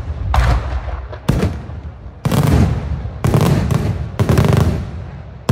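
Daylight fireworks: aerial shells bursting in loud bangs about once a second, each bang followed by a rumbling echo that dies away.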